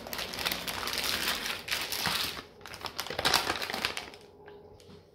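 Plastic packet of shaved deli ham crinkling as it is handled and slices are pulled out, a dense rustle with a short break partway through that fades out about four seconds in.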